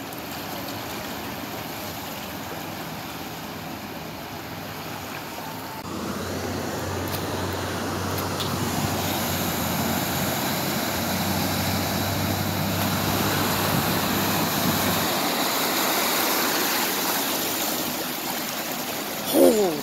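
A Pace bus driving through deep floodwater: a low engine hum comes in about six seconds in under a steady rush of water. The rushing grows louder as the bus's wake surges in toward the end.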